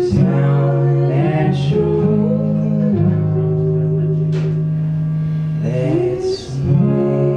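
A live acoustic duo: a woman singing long, held, gliding notes with a man's voice in harmony, over a strummed acoustic guitar.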